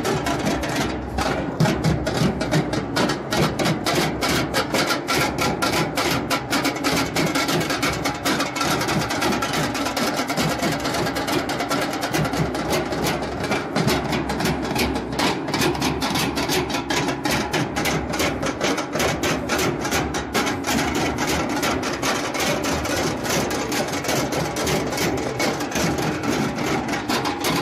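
A marching drum band: many large bass drums and smaller side drums beaten with sticks in a fast, continuous rhythm.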